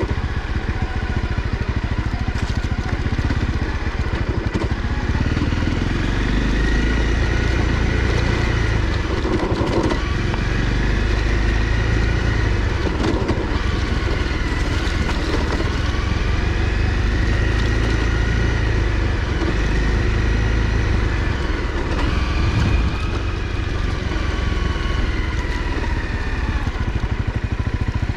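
Honda CRF250L's single-cylinder four-stroke engine running as the motorcycle is ridden, its pitch rising and falling repeatedly with the throttle.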